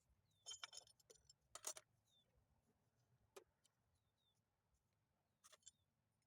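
A few light metallic clicks and clinks, about four of them spread over several seconds, from metal parts of a manual transmission being handled as its rear cover is fitted; otherwise near silence.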